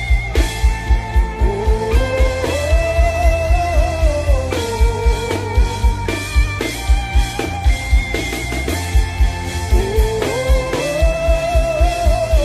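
Instrumental worship music: a quick, steady low drum beat under held chords, with a slow melody line that rises and falls twice.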